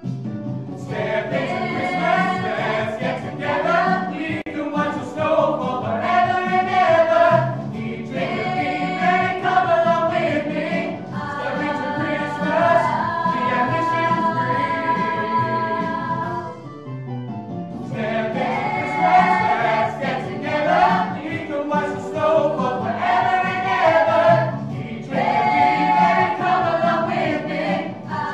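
A group of singers, men and women, singing a song together, with long held notes in the middle and a brief pause between phrases about two-thirds of the way through.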